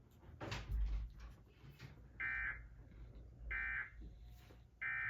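Emergency Alert System end-of-message data tones from a DASDEC II encoder: three short, shrill bursts of digital warbling, about 1.3 seconds apart, which signal that the alert message has ended. A brief noise comes about half a second before them.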